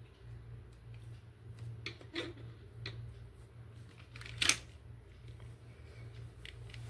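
A few sharp plastic clicks and taps from a toy and its packaging being handled. The loudest click comes about halfway through, over a steady low hum.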